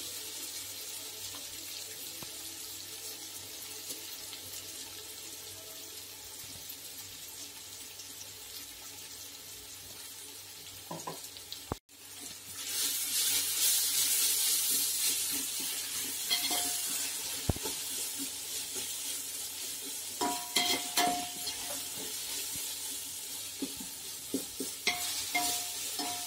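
Onions and ginger-garlic paste sizzling in hot oil in an aluminium pot, with a perforated steel ladle scraping and clinking against the pot as it stirs. After a brief break about halfway, the sizzle is louder and the scrapes come more often.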